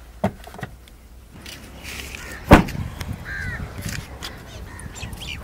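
A Maruti Suzuki Celerio's door is opened with a couple of light clicks, then slammed shut with one sharp thud about two and a half seconds in, the loudest sound. Birds call in the background after the slam.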